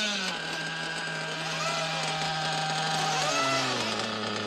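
Small nitro glow engines of 1/8-scale off-road RC cars running: one holds a steady buzzing idle that drops slightly in pitch a little after three seconds in, while others rise and fall in pitch as they rev.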